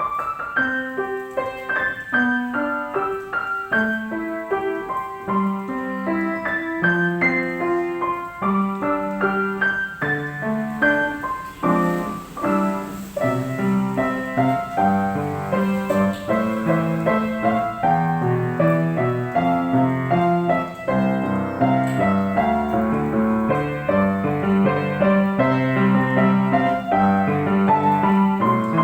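Piano playing a melody over lower bass notes, starting suddenly at the beginning and continuing steadily.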